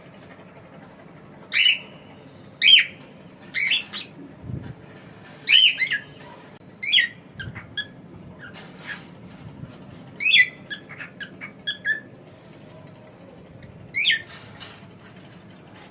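Cockatiel calling: a string of short, sharp chirps and whistles, several sliding down in pitch, coming in uneven bursts with softer chirps in between.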